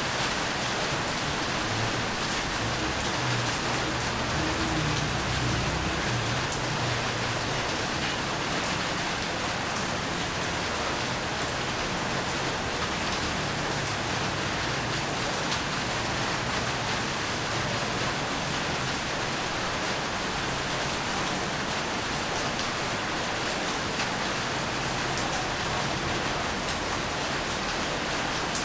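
Steady rain falling, a continuous even hiss with scattered individual drops ticking through it.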